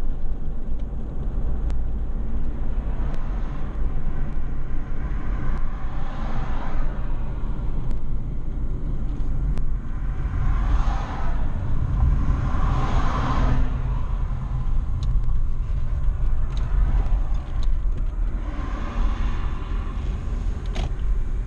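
Car driving on a road, heard from inside the cabin: a steady low rumble of engine and tyres that swells louder a few times, most strongly around the middle.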